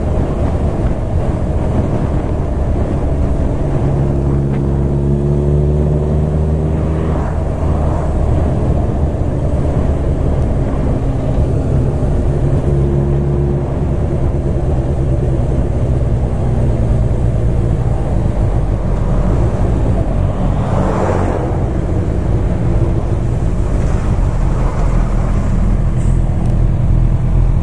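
Four-cylinder sport motorcycle engine running steadily under way, its revs climbing a few seconds in and again around the middle.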